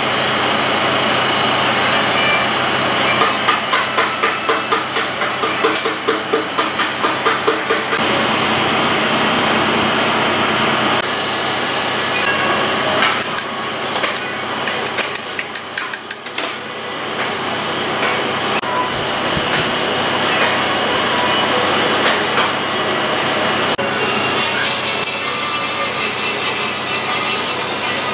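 Hand-tool work on the starter motor of an engine block: a run of rhythmic metal taps, then a quick rattle of clicks from a wrench and hammer at the mounting bolts, over a steady workshop noise.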